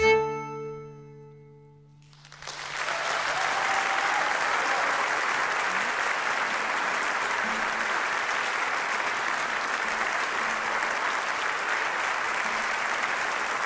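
A traditional Polish folk band's closing chord, led by the fiddle with a low bass note, rings out and fades over the first two seconds. The audience then breaks into steady applause for the rest of the time.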